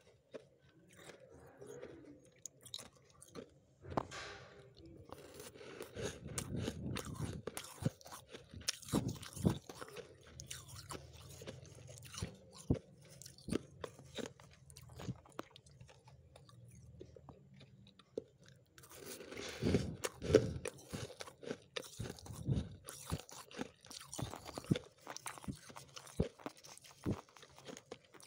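Crisp, irregular crunching of freezer frost as a metal spoon scoops into it and the frost is chewed. The crunches come thicker in two long stretches.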